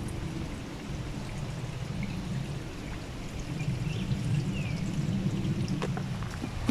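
Running water: a low, steady rush.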